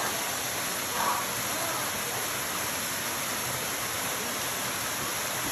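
Waterfall pouring down a rock face into a pool: a steady rush of falling water.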